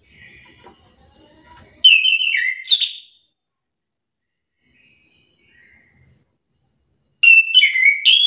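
Chestnut-capped thrush (anis kembang) singing: two loud phrases of sliding whistled notes, one about two seconds in and another near the end.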